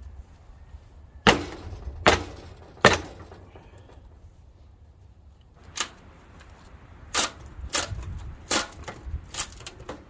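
Sharp metallic impacts from work on the harvester's metal parts: three hard blows a little under a second apart, then after a pause a single knock and a run of lighter, irregular knocks near the end.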